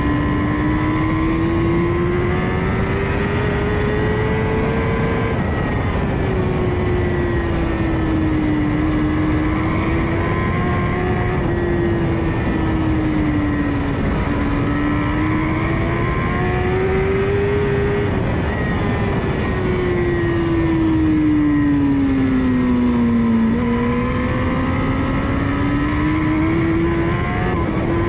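Kawasaki ZX-10R's inline-four engine at race pace heard from the bike itself, its pitch climbing and dropping several times as the rider accelerates and backs off through a run of corners, over a constant rush of wind noise.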